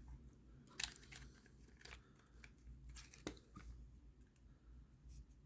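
Near silence: room tone with a few faint, short clicks, like small objects being handled.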